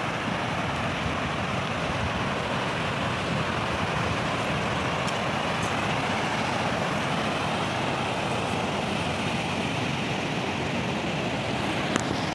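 Steady rushing of river rapids, white water tumbling over wide rocky cascades; it cuts off abruptly at the very end.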